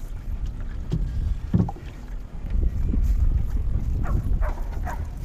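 Wind rumbling on the microphone while a small skiff is paddled, the paddle splashing and sloshing in the water. There is a single knock about a second and a half in.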